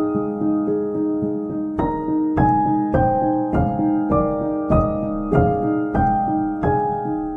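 Background piano music: a gentle, evenly paced melody with notes struck about every half second.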